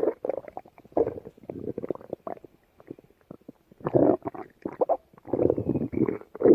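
Stomach growling and gurgling in several irregular bursts, with crackly pops between them and a loud burst starting near the end.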